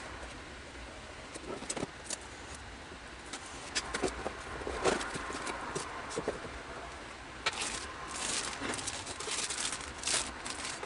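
Handling of a plastic model kit's cardboard box and its bagged plastic runners: scattered taps and clicks, with plastic-bag rustling in the second half.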